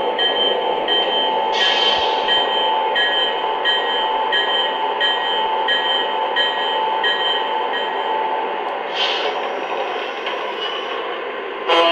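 Lionel Visionline O-gauge PRR GG1 model locomotive running, its motors and wheels making a steady rumble under the onboard sound system's electric-locomotive running sounds, with a faint tone pulsing about twice a second. Two short hisses come about a second and a half in and again about nine seconds in.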